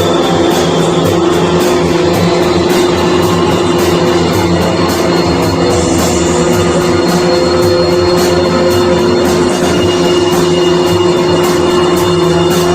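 Band rehearsal: loud, dense droning rock jam with guitar and drums, built on a steady held note, in a krautrock/noise-psychedelic style.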